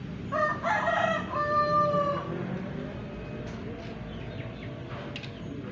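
A rooster crowing once, a single drawn-out call lasting about two seconds, starting just after the beginning.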